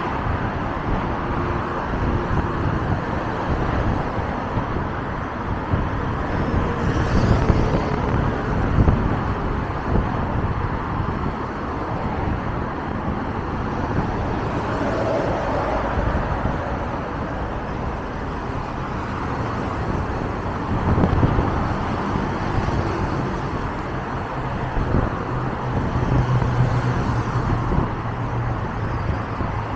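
Steady road traffic on a multi-lane road, with cars and a box truck passing one after another. Several vehicles pass louder, and near the end a low steady engine hum rises.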